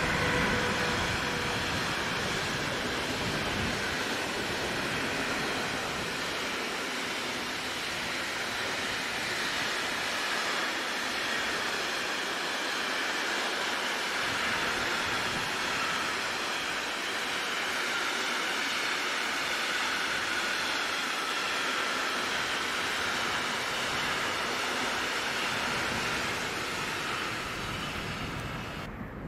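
Electric train passing on the line: a falling whine in the first second or two, then a long, steady rolling noise of wheels on rails that cuts off suddenly near the end.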